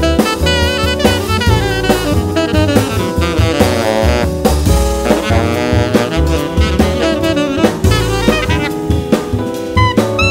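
Jazz quartet playing: tenor saxophone plays quick runs of notes over drum kit, double bass and Fender Rhodes electric piano.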